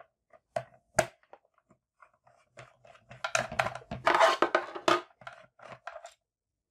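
A plastic label printer case being unscrewed and opened with a hand screwdriver: light scattered clicks, then a denser patch of plastic clattering and scraping about three to five seconds in as the back cover is moved and turned over on a wooden desk.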